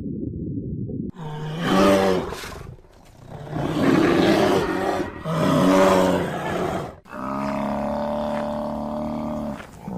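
An animal roaring three times in a row, loud pitched calls with a rough edge. From about seven seconds in, a long, steady, pitched yowl takes over.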